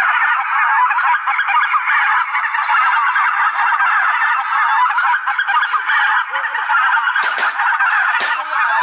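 A large flock of wild geese calling all at once overhead, a dense, continuous chorus of honking. Near the end, two shotgun shots about a second apart.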